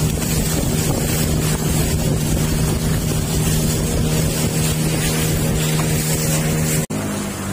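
A river boat's motor runs at a steady cruising speed, a constant humming note, with wind buffeting the microphone and water rushing past. Just before the end the sound breaks off for an instant and comes back with a lower, weaker engine note.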